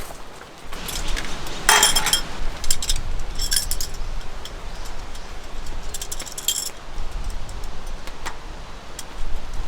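Small metal items jingling and clinking in three short bursts, over a low rumble of wind on the microphone.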